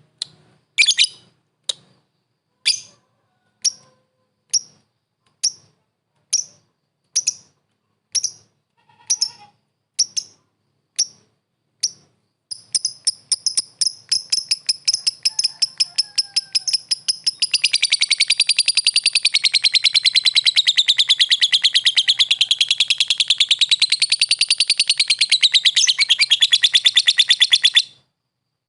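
Lovebird calling to a rival: sharp, high chirps about once a second, then from about twelve seconds in the chirps quicken into a fast, continuous chatter that wavers up and down in pitch and stops abruptly near the end.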